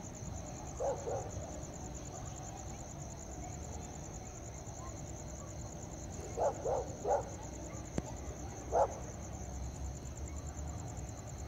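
A dog barking: twice about a second in, three quick barks past the middle and once more near the end, over a steady high chirring of night insects. A single sharp click just before the last bark.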